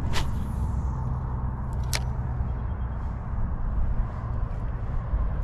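Steady low outdoor rumble, with two sharp clicks about two seconds apart, one just after the start and one about two seconds in.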